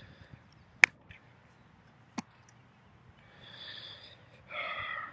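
A football slapping into hands: a sharp, close slap about a second in, then a fainter, more distant slap just over a second later. Two breathy hisses follow near the end.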